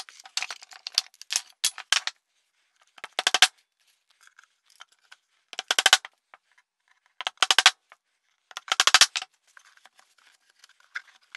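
Claw hammer driving nails into plywood: quick clusters of rapid, sharp strikes, coming every second or two.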